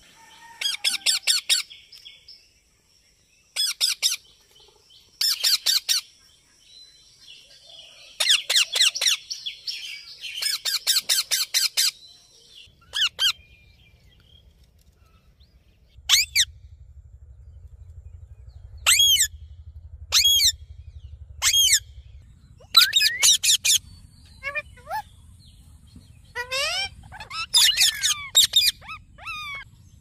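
Indian ringneck parakeet calling: quick runs of sharp, high repeated notes in several bursts, then single calls that sweep up and down in pitch, one every second or two, from about sixteen seconds in.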